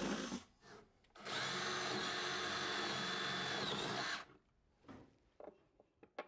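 DeWalt cordless drill boring holes up through a wooden cabinet bottom. One run stops just after the start; a second run goes steadily for about three seconds and winds down. Faint taps and handling follow.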